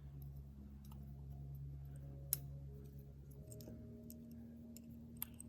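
Small clicks of a watch and its case parts being handled on a work surface, with one sharper click about two seconds in and another near the end, over a faint low hum.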